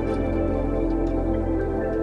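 Background music: slow ambient new-age music with sustained pad chords and a few light chime-like notes.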